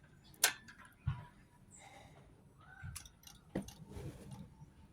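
A motorcycle key ring jingling and a key clicking into the ignition switch: a few sharp clicks and small metallic clinks, the loudest about half a second and a second in.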